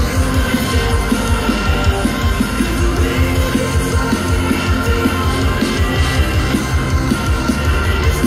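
Rock band playing live at full volume: drums beating steadily under distorted guitars.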